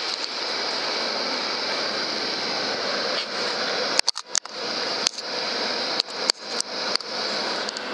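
Steady hiss of a camera-scope recording, broken between about four and eight seconds in by several sharp clicks and brief cut-outs as the rifle and scope are moved about.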